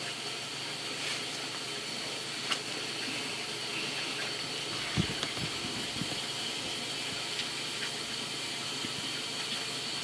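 Steady hiss of background noise with a few faint clicks and a short soft knock about five seconds in.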